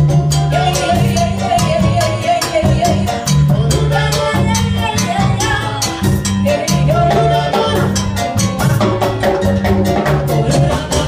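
Salsa band playing: a repeating bass line under dense percussion and a melody line.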